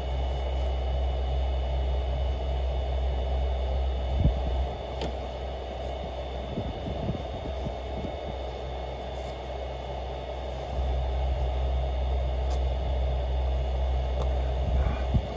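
Car running along a road, engine and tyre noise heard from inside the car. A steady low drone fades out for several seconds in the middle and comes back, with a short knock about four seconds in.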